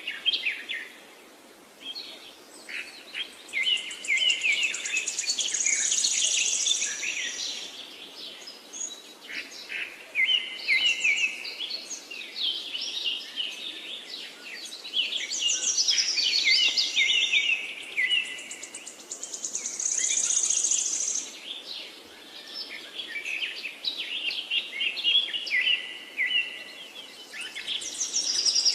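Small birds chirping in busy bouts of rapid, high chirps, with short lulls between the bouts.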